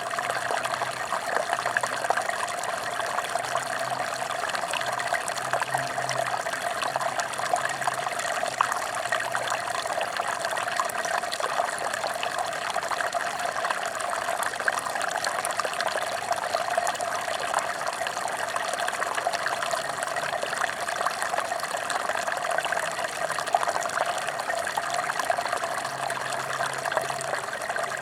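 Mountain stream running steadily: a continuous rush of flowing water with fine splashing and no let-up.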